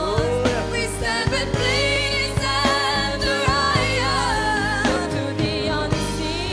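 Gospel song: a woman singing a melody with vibrato over a backing band with a steady drum beat.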